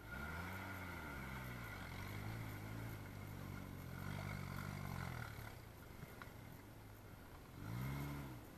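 Suzuki Samurai's four-cylinder engine revving up and down in repeated bursts under load as it climbs a steep sandy slope off-road, loudest near the end.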